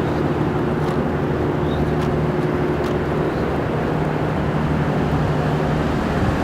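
Steady city background noise under a constant low hum, like machinery or traffic heard from an open rooftop.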